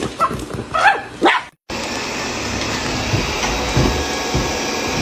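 A dog barks a few short times. Then the sound cuts, and a robot vacuum cleaner runs with a steady whirring hum.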